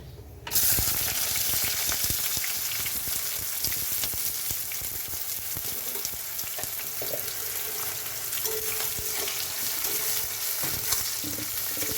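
Chopped onions dropped into hot oil in a kadai, sizzling loudly all at once about half a second in, then frying steadily.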